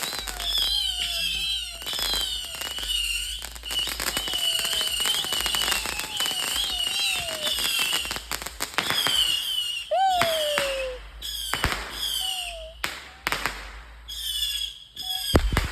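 Fireworks going off: several shrill whistles warble on top of one another amid fast crackling pops, a squeaking that sounds like multiple rats. About ten seconds in, a louder whistle sweeps up, then slides down in pitch.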